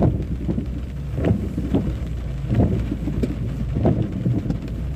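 Car interior noise while driving slowly on a wet road in heavy rain: a steady low engine and road rumble, with irregular short taps and knocks on top.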